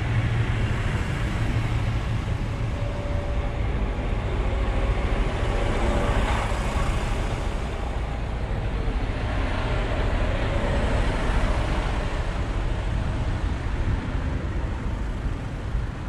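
Coach buses' diesel engines running and driving by, a steady low rumble of heavy traffic that swells a little about six and about eleven seconds in.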